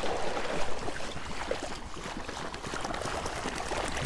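Water splashing and sloshing as a dog wades through shallow marsh water, bringing back a retrieved duck.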